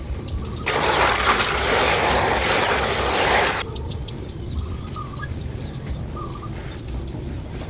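Small birds chirping in short repeated calls over a low outdoor rumble. A loud hiss starts abruptly about a second in, runs for about three seconds, then cuts off suddenly; it is the loudest sound.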